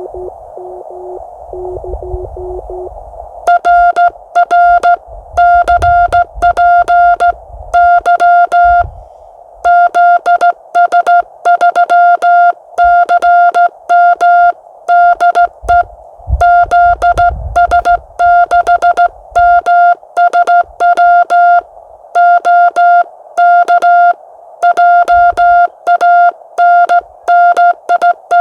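CW Morse code on an amateur radio transceiver. For the first 3 seconds a fainter, lower tone sounds in receiver hiss; then a loud keyed Morse tone starts, with a click at each dot and dash, and runs as steady Morse with short gaps between characters and words.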